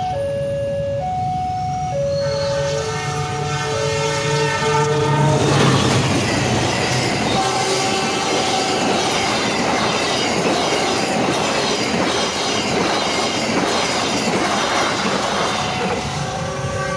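Level crossing alarm chiming two alternating tones, then a train horn sounds about two seconds in as the train approaches. From about five seconds in, the passenger train passes close by, rumbling with wheels clattering over the rail joints. The crossing alarm's two tones come through again near the end.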